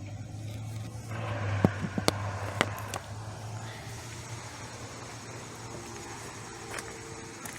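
Hand tools and metal parts handled during under-hood work: a few sharp clicks and clinks about two seconds in, over a steady low hum.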